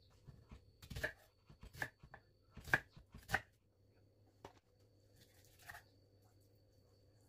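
Chef's knife cutting onion on a wooden chopping board: about six sharp knocks of the blade hitting the board in the first four and a half seconds, then fainter handling and rustling.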